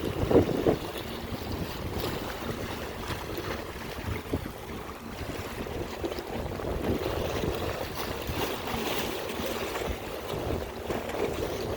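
Wind buffeting the microphone over the wash of Lake Michigan waves on the shore, with a brief louder burst about half a second in.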